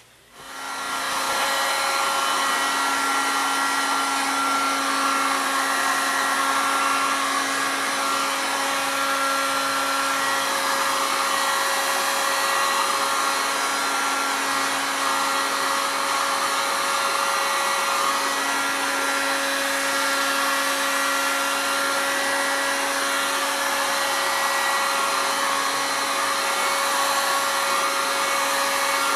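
Electric heat gun switched on and coming up to full blast within a second or so, then running steadily: a loud fan rush with a steady hum. It is heating a rattan bow limb so the wood can be bent into a recurve.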